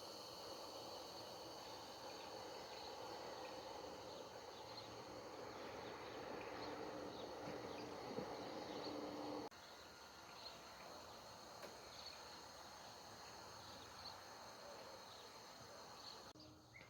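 Faint outdoor ambience: a steady insect trill with a few faint scattered chirps. A low hum stops about nine and a half seconds in, and the background gets a little quieter.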